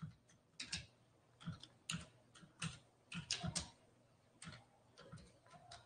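Faint, irregular keystrokes on a computer keyboard: a dozen or so scattered taps with short gaps between them.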